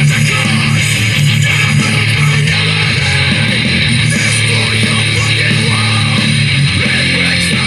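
Loud background music with strummed, distorted electric guitar over a heavy bass line, in a heavy-rock style.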